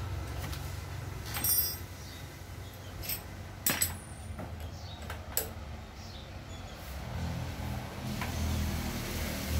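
Scattered sharp metallic clicks and clinks of tools and parts being handled during motorcycle engine disassembly, over a low hum that grows louder near the end.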